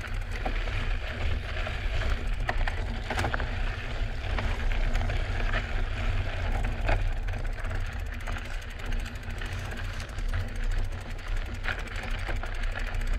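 Drop-bar mountain bike riding over a rocky dirt trail: tyres crunching over gravel and stones, with frequent clicks and rattles from the bike and a steady low rumble.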